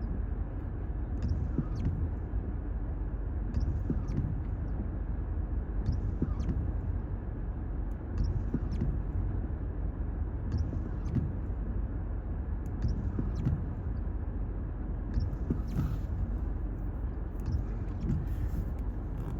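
Steady road and engine rumble of a car driving, heard inside the cabin, with faint light ticks in pairs about every two and a half seconds.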